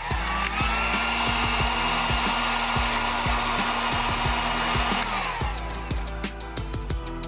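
Harbor Freight 1500-watt heat gun blowing: its fan spins up with a rising whine, runs steadily with a rush of hot air, then winds down about five seconds in, the whine falling in pitch. It is warming the end of a vent hose to soften it for fitting.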